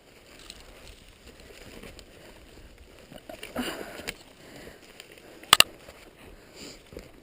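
Snowshoe steps crunching and swishing in snow, with a sharp double click about five and a half seconds in.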